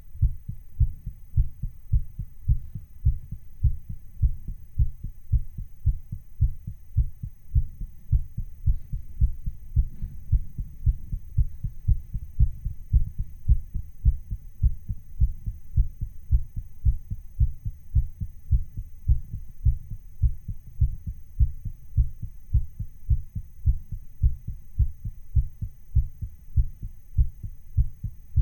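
A human heartbeat, recorded close up and played slightly sped up to sound racing: fast, steady, low thumps in an even rhythm.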